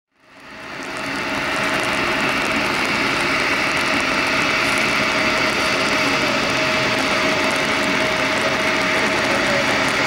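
Bombardier CRJ-900's two rear-mounted General Electric CF34 turbofans at takeoff thrust during the takeoff roll: a steady jet engine noise with a high whine, fading in over the first second or so.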